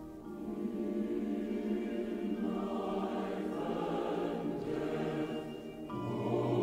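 Choir singing slow, held chords, moving to a new chord near the end.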